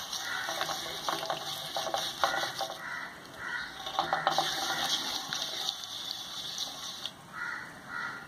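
A hand beating ghee and sugar in a stainless steel plate: continuous wet rubbing and smearing of fingers over the metal, in repeated strokes, as the mixture is creamed until smooth.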